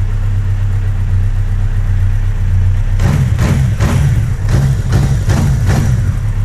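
Yamaha XJR1200's air-cooled inline-four engine idling steadily after a cylinder-head rebuild with reworked valves; about halfway through, a quick run of short throttle blips, roughly two a second. The valve knock is cured: the owner hears only one valve ticking slightly, which he puts down to a tight valve that will bed in.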